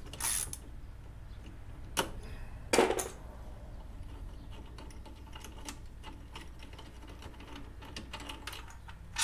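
Light metallic clicks and clinks of a socket and extension on a loosened 14 mm exhaust mounting bolt as it is worked out, with a sharper clack about three seconds in.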